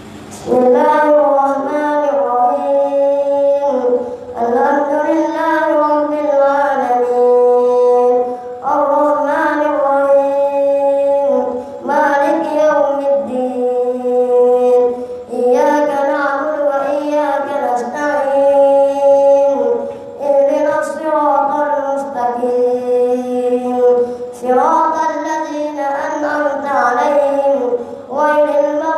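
A young boy's voice reciting the Qur'an aloud in melodic Arabic chant, leading a congregational prayer. It comes in long drawn-out phrases of a few seconds each, with a short breath between them.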